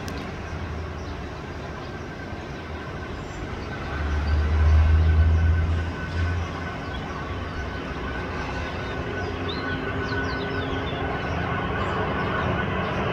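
Distant Boeing KC-135R Stratotanker's four CFM56 turbofans running on the landing rollout: a steady rumble with a thin steady whine. A deep low rumble swells for about two seconds around four seconds in.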